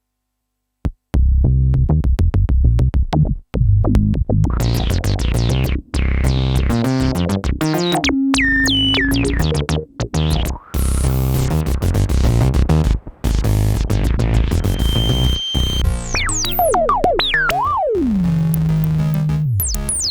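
Waldorf Microwave wavetable synthesizer playing: a quick run of short, changing notes with brief gaps, starting about a second in after silence. Near the end come several falling pitch sweeps, settling into a held low note.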